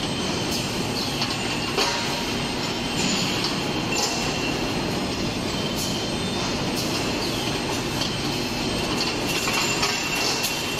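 Automatic screw spike production line running: steady machine noise with a thin high whine, broken by sharp metallic clanks every second or two.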